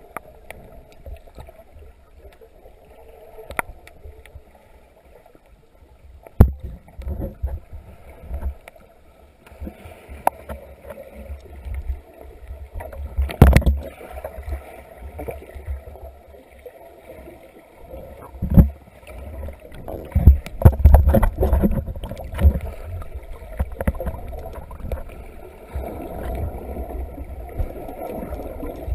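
Muffled underwater sound picked up by a camera held below the surface: low water rumble and sloshing, broken by irregular knocks and thumps, the loudest about a third of the way in and a cluster of them past the middle.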